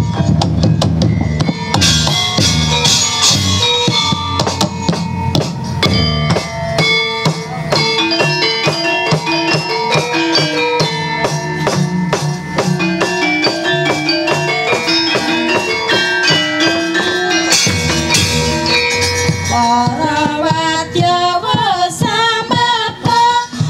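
Javanese gamelan ensemble playing: bronze metallophones and gongs strike a stepped, repeating melody over kendang drum strokes. The ensemble swells briefly louder about three-quarters of the way through, and a wavering melodic line comes in over the top near the end.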